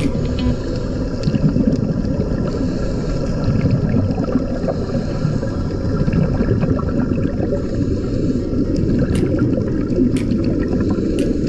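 Underwater ambience picked up through the camera's underwater housing: a steady, muffled rumble of water with air bubbling from the sea-walker helmets' air supply. A few faint clicks come near the end.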